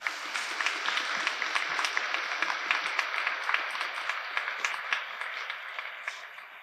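An audience applauding, many hands clapping at once, dying away near the end.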